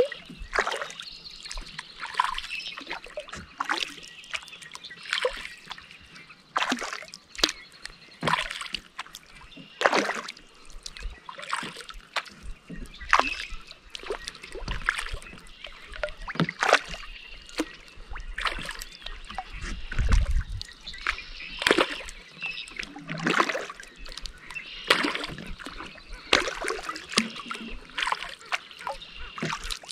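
Kayak paddle blades dipping into calm lake water, with repeated splashes and drips from the strokes all through.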